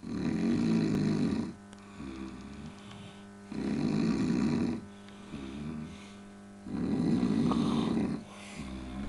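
A person snoring heavily: three loud, rough snores about three seconds apart, each followed by a quieter, wavering tone of breath.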